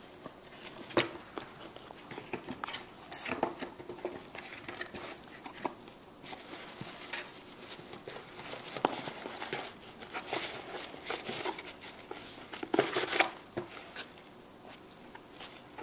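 Cardboard shoebox rustling, scratching and knocking as a Bengal cat moves about inside it and the lid is handled. The loudest knocks come about a second in and again a couple of seconds before the end.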